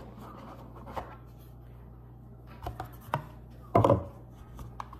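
Hands handling a black cardboard gift box and its lid: scattered light taps and scrapes, with the loudest knock a little before four seconds in.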